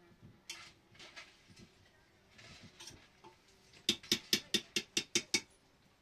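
A few scattered soft knocks, then a quick run of about eight sharp, evenly spaced taps, about five a second, like a hand tool striking hard material.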